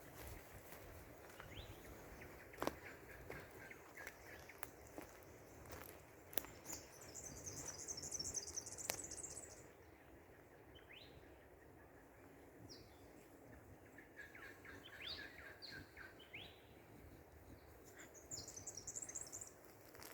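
Faint small birds calling: short chirps, with a high, rapid twittering about seven seconds in that lasts some three seconds, and again near the end. A few sharp clicks or footfalls in the first six seconds.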